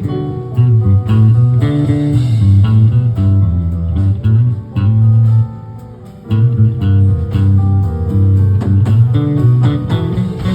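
Band music: an instrumental passage of guitar over a bass line, with no singing. The music drops briefly a little past the middle, then comes back in.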